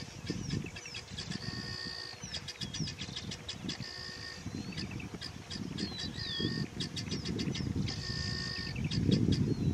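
Birds calling with rapid repeated high notes, curling whistled glides and a few short held tones, over low rustling and tearing of an African elephant pulling up grass to feed. The low rustling is loudest near the end.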